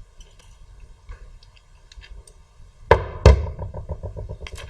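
Crimping tool's stripping blade worked around a Cat 6 cable to pull off its outer jacket: faint small clicks, then two sharp clacks about three seconds in, followed by a quick rattle of ticks for about a second.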